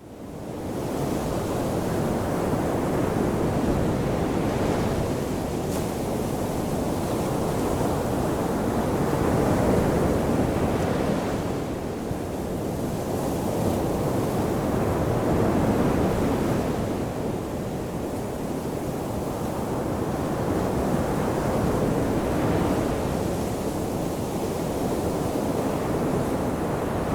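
Ocean surf washing onto a shoreline: a continuous rushing wash that swells and eases in slow waves about every six seconds. It fades in from silence right at the start.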